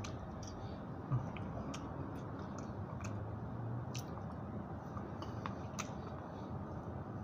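A person eating quickly, chewing and biting food, with a few sharp clicks scattered through. A steady low hum sits underneath.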